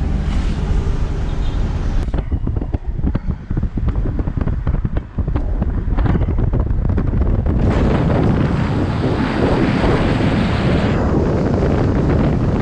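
Wind buffeting the microphone over the low rumble of a moving vehicle, the gusty hiss swelling louder for a few seconds past the middle.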